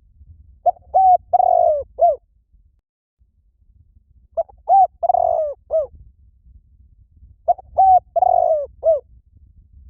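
Spotted dove cooing, a lure call: three identical phrases about three seconds apart, each of two short coos, a longer burry coo and a final short coo.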